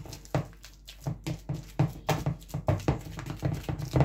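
Metal wire potato masher mashing ripe bananas in a plastic bowl: a steady rhythm of soft strokes, about four a second.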